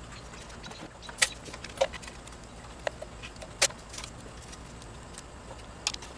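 Scattered sharp clicks and light knocks from hand tools and engine parts being handled in an engine bay, about five in all, spread a second or so apart over a faint steady background.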